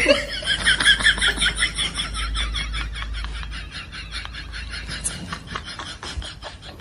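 A comic sound effect: rapid, high-pitched chattering pulses, about ten a second, fading out over several seconds.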